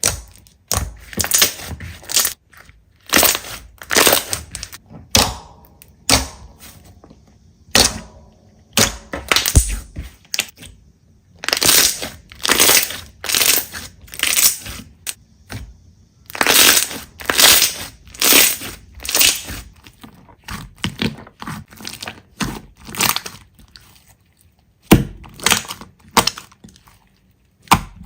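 Slime being squeezed and pressed over and over, giving a crackling crunch with each squeeze, roughly one a second with short pauses between.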